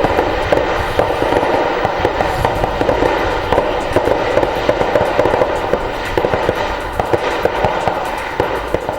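Sustained gunfire in a firefight, many shots overlapping into a dense, continuous crackle that eases slightly toward the end.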